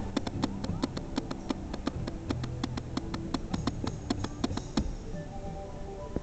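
Rapid, even percussive taps, about five or six a second, over faint music, the tapping stopping about five seconds in while the music carries on.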